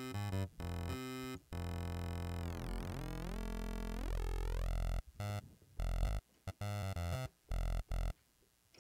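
Serum wavetable synthesizer notes run through the u-he Uhbik-P phaser set up as a comb filter. Short repeated notes give way to a held note about one and a half seconds in, whose comb-filtered tone sweeps as the phase is turned. From about five seconds in there are short notes again.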